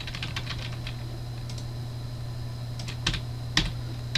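Computer keyboard keys tapped in a quick run near the start, then a few scattered clicks, with two sharper clicks about three seconds in, over a steady low hum.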